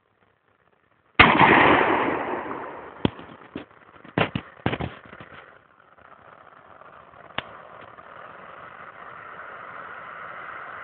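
A single 12-gauge shotgun shot about a second in: a sudden blast that rings out and dies away over about a second. Several sharp clacks follow over the next few seconds as the shotgun is handled, then a steady rushing noise slowly builds.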